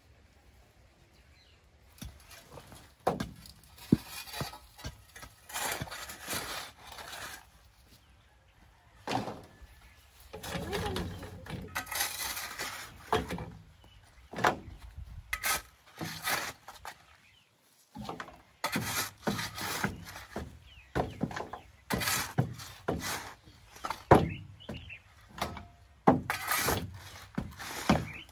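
Shovel and hoe digging into a heap of loose earth and tipping it into a metal wheelbarrow: a run of irregular scrapes and thuds with some sharp knocks, starting about two seconds in.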